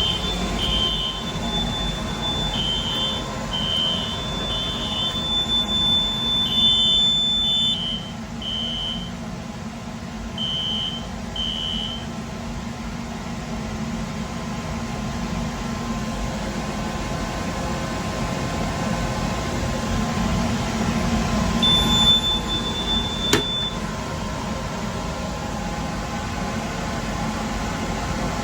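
Fire-Lite ES-200X fire alarm system sounding the temporal-three evacuation signal: high beeps in threes, about one a second, each group followed by a short pause. The beeps stop about 12 seconds in. A steady, higher tone runs under the beeps until about 8 seconds in and sounds again for about two seconds near 22 seconds in, all over a steady low hum.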